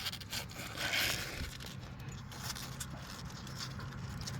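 Brief scraping with light clicks from hands working a cap loose on top of the engine, which lets the draining oil flow freely.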